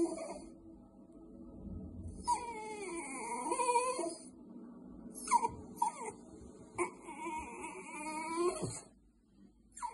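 A Border Terrier whining in several high, wavering spells, the first beginning about two seconds in and the last ending near nine seconds: begging to be fed.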